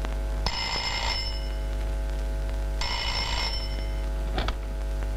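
Desk telephone bell ringing, two rings of about a second each with a pause between, then a short click near the end, over a steady hum.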